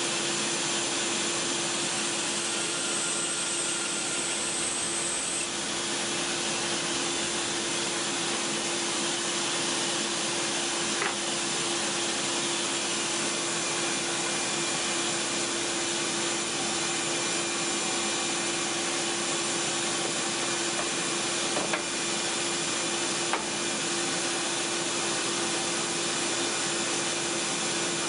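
Band saw running steadily with a constant hum, its blade cutting through a stack of neoprene foam between wooden boards. Three short ticks near the middle and later on.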